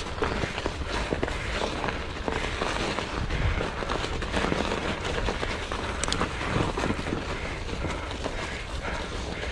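Mountain bike riding over muddy, snowy singletrack: a steady rumble of tyres and trail noise with many small clicks and rattles from the bike.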